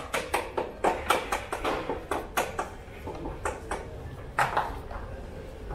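Irregular sharp metal clicks and taps from hand tools and parts being handled while a hydraulic brake caliper is refitted on an electric pit bike. They come several a second at first, thin out after about three seconds, and end with a louder knock.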